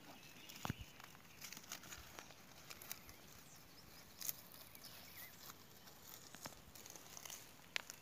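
Faint, irregular rustling and crackling of dry grass and leaf litter as an armadillo scurries off through it.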